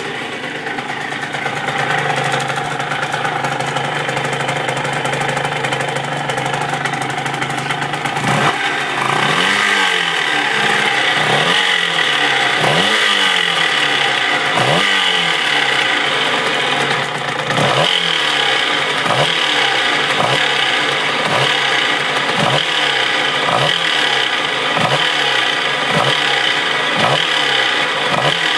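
Tuned 75cc two-stroke moped engine (Yamaha TZR 50, AM6) idling, then blipped again and again from about a third of the way in, each blip opening with a sharp crack and the revs falling away, roughly once a second. The owner hears a strange resonating, whirring noise that grows with revs and a clacking like something loose rattling.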